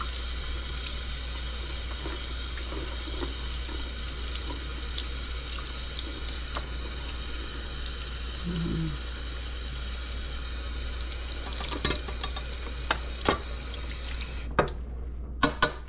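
Kitchen tap running steadily into a sink while a knife is rinsed under it. The water shuts off suddenly near the end, followed by a few sharp clicks.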